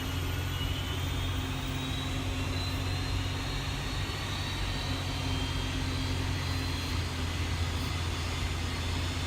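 Trepel pushback tug's engine running steadily, heard from inside the cab during a pushback, with a faint high whine rising slowly in pitch over it.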